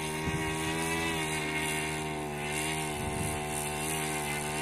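Twin brushless electric motors (NTM Prop Drive 3536, 1400 kV) turning 8x4 propellers on a radio-controlled model biplane, whining steadily as it taxis on grass. The pitch wavers slightly.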